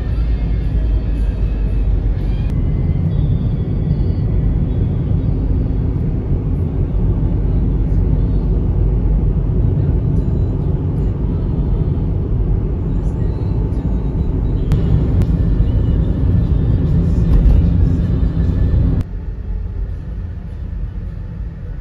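Steady low rumble of road and engine noise inside a moving car, with music playing faintly underneath. Near the end the rumble drops abruptly to a quieter level.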